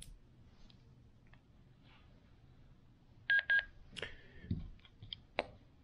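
Handheld GMRS/ham radios being switched on one after another: a quick triple electronic beep from a radio powering up a little past three seconds in, followed by a few sharp clicks of the radios' power/volume knobs being turned.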